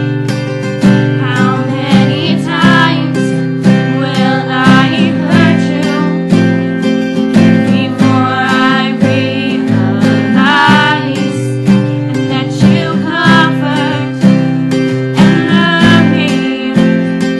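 Acoustic guitar strumming chords in a steady rhythm, accompanying an original song.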